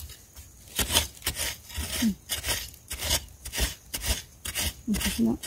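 Metal-bladed digging spade on a long wooden handle chopping and scraping into dry, sandy soil in quick repeated strokes, about two or three a second.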